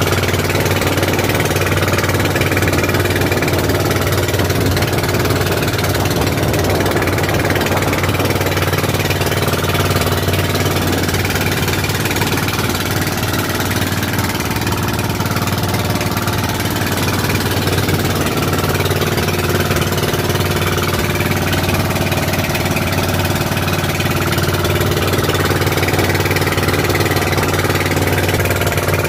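An outrigger boat's (bangka's) engine running steadily, loud and unbroken, while the boat is under way.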